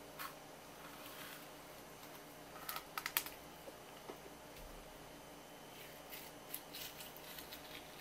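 Kitchen knife cutting along the back of a striped jack on a wooden board: faint, irregular clicking and crackling as the blade works through the fish, with a quick cluster of sharper clicks about three seconds in.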